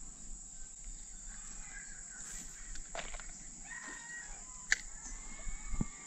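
Steady, high-pitched drone of summer insects. A faint call is heard near the middle and a sharp click comes about two-thirds of the way through.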